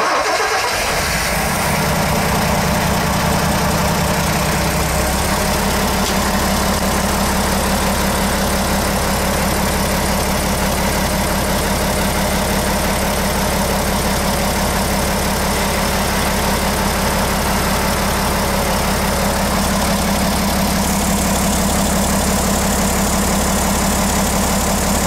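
Mercedes marine diesel engines idling steadily in a cramped engine room, with a dense, even mechanical rumble. The low note shifts slightly about five seconds in.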